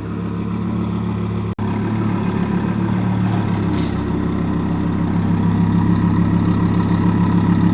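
A car engine idling steadily and loudly, dropping out for an instant about a second and a half in, then running on slightly louder toward the end.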